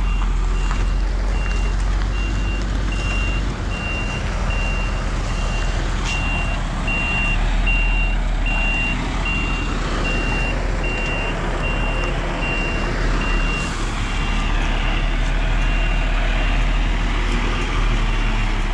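Scania S500 truck reversing with its semi-trailer: the reversing alarm beeps in a steady on-off pattern over the low, steady running of its 13-litre straight-six diesel engine.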